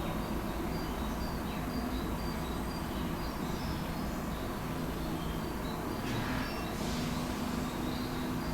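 Outdoor background: a steady low rumble, with faint short high chirps of birds now and then.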